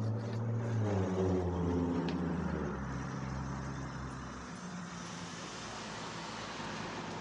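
A motor vehicle's engine hum that falls in pitch over the first few seconds, then settles into a steady noise.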